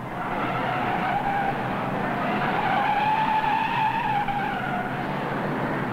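Race cars running at speed around the track: a sustained, steady note that rises slowly and then eases back down near the end.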